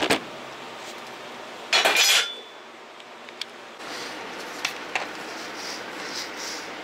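Metallic clinks and a clatter as a metal bar and screwdrivers are handled and set down on a workbench, the loudest about two seconds in. After that, a steady room hum with a couple of light clicks as a plastic freeskate is tipped on a concrete floor.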